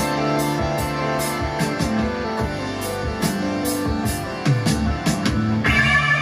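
Recorded music with guitar and drums played back through a NAD 304 integrated stereo amplifier and loudspeakers. About five and a half seconds in, a brighter sustained part enters on top.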